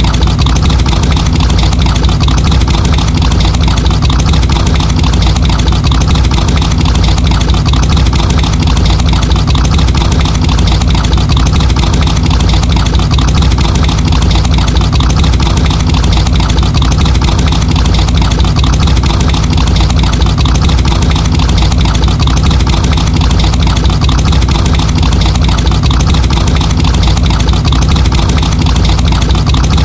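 Muscle car engine idling steadily, with most of its sound low and even and no revving.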